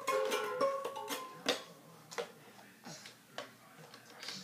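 A few short musical notes in the first second, then a string of separate light knocks and clicks, a toddler bumping against a hard plastic race-car bed.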